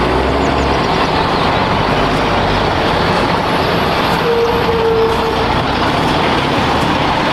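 Heavy truck engine running steadily, a dense, even rumble with no clear rhythm. A brief faint tone sounds about four seconds in.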